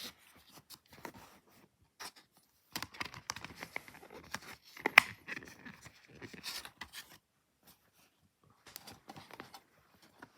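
Hands handling a DVD box set and its packaging: crinkling and rustling with scattered small clicks, and one sharp click about five seconds in.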